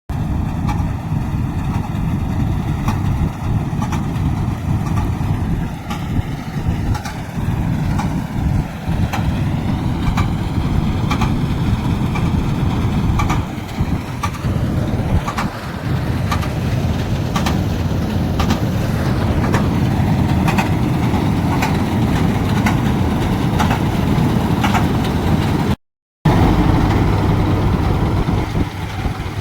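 Preet combine harvester's diesel engine running steadily with a heavy low rumble, with frequent short clicks and rattles from the machine, harvesting soybeans. The sound cuts out briefly near the end.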